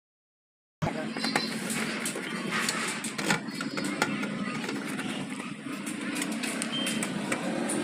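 Silent for the first second, then a screwdriver clicking and scraping on the screws of a sheet-metal battery charger case as they are undone, over a steady bed of street traffic noise.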